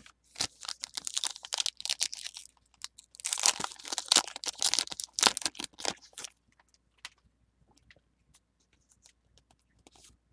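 A foil Pokémon booster pack wrapper being torn open and crinkled, in two spells of tearing and crackling over the first six seconds, followed by a few faint ticks as the cards are handled.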